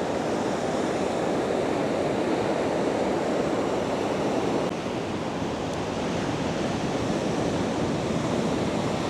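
Heavy sea swell breaking against rocks: a steady rush of churning water, even throughout with no single crash standing out.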